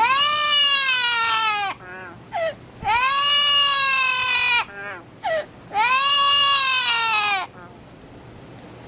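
A parrot mimicking a crying baby: three long, drawn-out cries, each rising then falling in pitch, with short squeaks between them.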